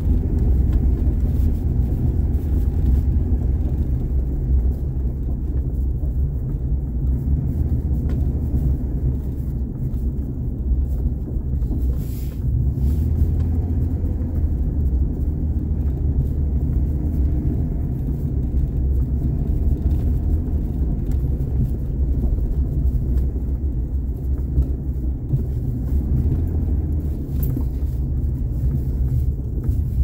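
Steady low rumble of a car driving, engine and tyre noise.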